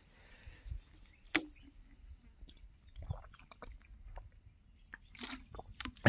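Faint crunching footsteps and rustling on dry, gravelly soil, with one sharp click about a second and a half in.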